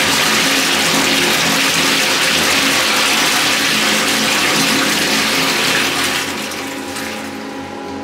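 Self-cleaning stainless-steel public toilet running its automatic wash cycle: water spraying and rushing around the steel bowl and down the drain, easing off over the last two seconds.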